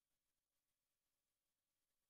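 Near silence: only a very faint steady hiss, with no sound events.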